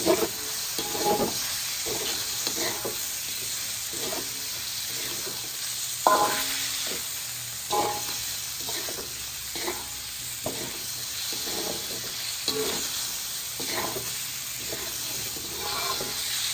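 Chicken pieces sizzling in hot oil with garlic while being stirred. The utensil scrapes and knocks against the pan at irregular moments, about once a second, loudest about six seconds in. The raw chicken is frying until its meat turns white.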